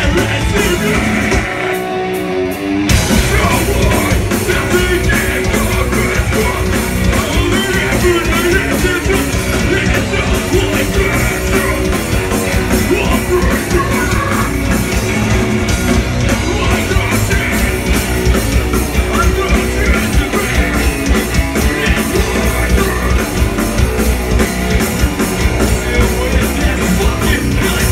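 Live metalcore band playing loud, with distorted electric guitar, bass and drums under a vocalist on the microphone. The band thins out briefly about two seconds in, then comes back in at full force.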